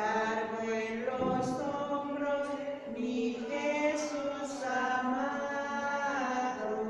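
A slow hymn or chant sung for the adoration of the cross, with long held notes gliding from one pitch to the next.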